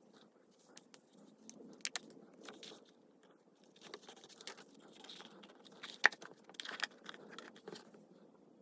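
Hands handling a notebook: crinkly rustling and scattered clicks, the sharpest about six seconds in.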